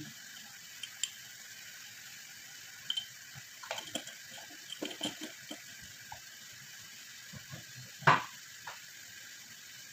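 Food sizzling faintly and steadily in a saucepan on a gas stove, with scattered light clicks and taps of kitchen handling and one sharp knock about eight seconds in.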